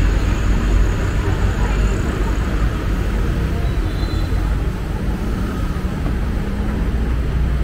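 Steady road traffic noise, a continuous deep rumble with no distinct events.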